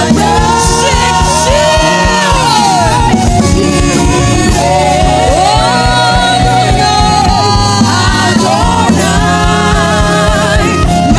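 Gospel song: sung vocals with a steady beat and bass accompaniment.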